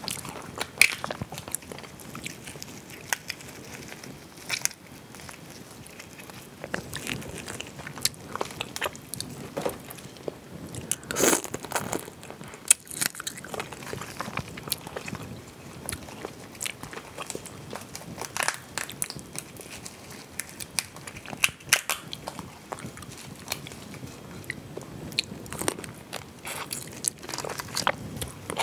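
Close-miked eating of mala crayfish: shells cracking and snapping as gloved hands pull them apart, with wet chewing between the cracks. The cracks come irregularly throughout, and the loudest ones fall a little after ten seconds in.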